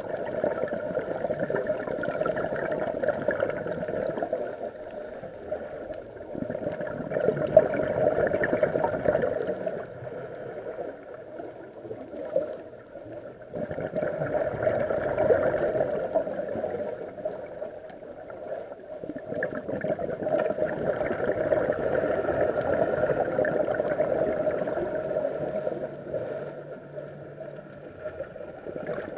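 Scuba diver's regulator breathing underwater, heard through the camera's waterproof housing: long gurgling bursts of exhaled bubbles about every six seconds, with quieter spells between breaths.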